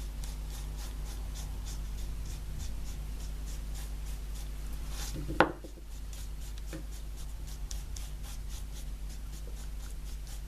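Small stiff-bristle brush rubbing and dabbing white acrylic paint onto the painted piece in short, repeated scratchy strokes, over a steady low hum. One brief louder knock about five seconds in.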